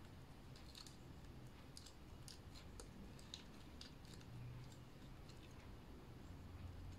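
Faint, scattered small clicks and ticks from handling a hair-curling tool and strands of hair, over near-silent room tone.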